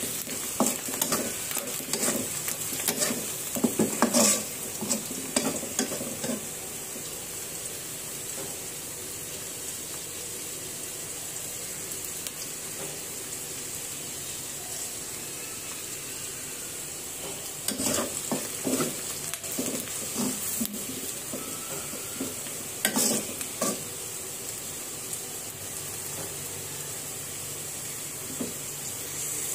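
Chopped onions sizzling in hot oil in a karai, frying for a baghar (tempering). A metal spatula scrapes and stirs them in the pan in clusters through the first few seconds and twice more about two-thirds of the way through, with a steady sizzle in between.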